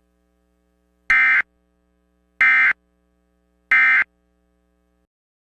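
Three short bursts of Emergency Alert System SAME digital data tones, the End of Message code that closes the alert. Each burst is a harsh electronic warble about a third of a second long, and they come a little over a second apart.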